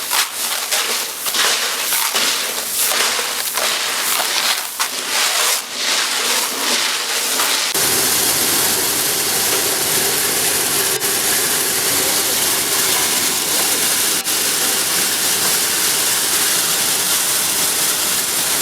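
Corn milling plant machinery running loud. An uneven, rushing hiss changes about eight seconds in to a steady, fuller machine noise.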